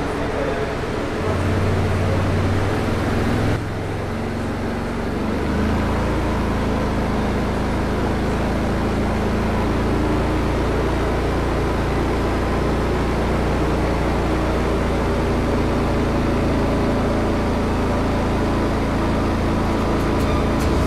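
Loncin X-Wolf 700 ATV engine running under load on a chassis dynamometer during a power-measurement run after an engine-firmware re-flash. Its note dips about three and a half seconds in, then holds steady.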